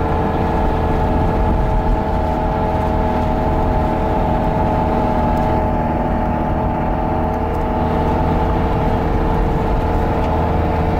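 Campervan engine and road noise heard from inside the cab while driving at a steady speed on a wet road: a low rumble with a steady whine over it.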